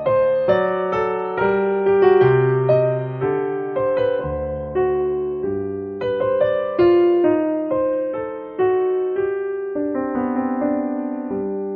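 Background music: a slow, gentle piano melody of struck notes, each left to ring and fade.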